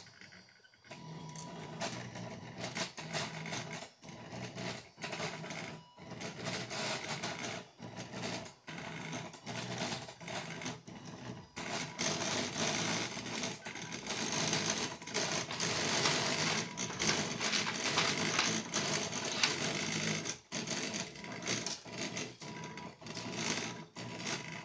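Homemade 3D printer built from recycled inkjet printer parts running a print: its motors and carriages buzz and whir in stretches of movement broken by brief pauses, busier and louder in the middle, over a faint steady high tone.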